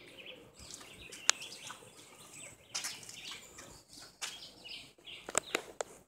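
Birds chirping in the surrounding forest, with a sharp click about a second in and a few more clicks near the end.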